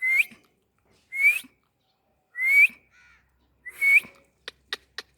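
Indian ringneck parrot giving four short rising whistles, about a second and a half apart. Then a quick run of sharp clicks near the end.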